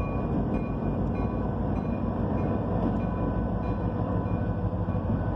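Train with diesel locomotives passing, a heavy steady rumble, with a short high ringing tone repeating about every half second through most of it.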